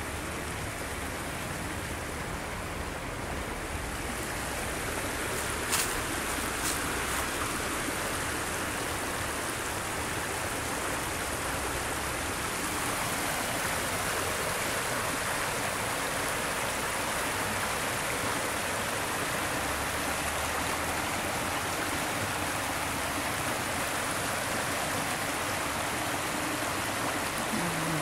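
Creek water spilling over a low concrete weir and rushing over rocks: a steady rushing that grows louder over the first dozen seconds, then holds even.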